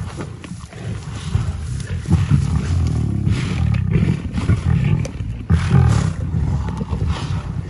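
A pride of lions growling deeply and continuously as they feed together on a fresh impala kill, with several louder surges.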